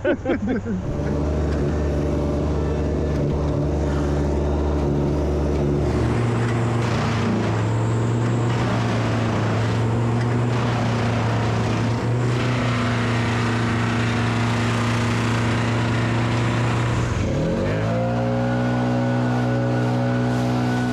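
A large engine running steadily under load, its pitch dropping just after the start, shifting down a step about six seconds in, then revving up to a higher steady speed about three-quarters of the way through.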